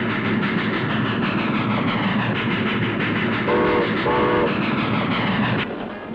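Steam train running, its wheels clacking over the rail joints, with two short blasts of the locomotive whistle a little past halfway. The sound cuts off suddenly near the end.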